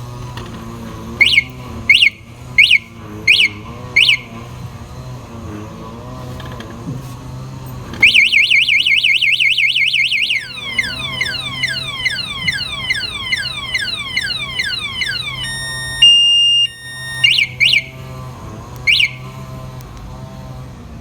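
Motorcycle anti-theft alarm siren running through its tones: five short chirps, then a fast warble for about two seconds, then a run of repeated falling sweeps, a brief steady beep, and a few more chirps near the end.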